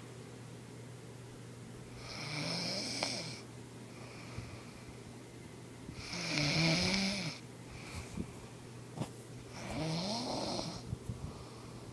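A sleeping woman snoring: three snores about four seconds apart, each lasting a second or so, the middle one the loudest.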